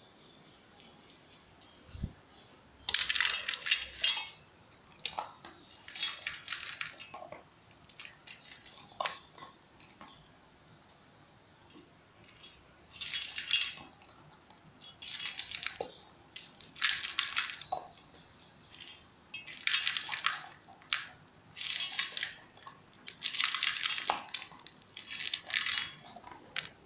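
Dog eating dry kibble from a stainless steel bowl: repeated bursts of crunching and pellets clinking against the metal, each a second or two long with short pauses between. A low thump comes about two seconds in, before the eating starts.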